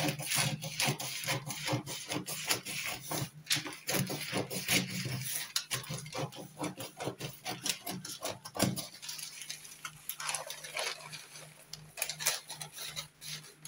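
Scissors snipping through brown pattern paper in quick repeated cuts, with the paper rustling and crinkling. After about nine seconds the snips thin out into softer rustling as the cut-away paper is handled.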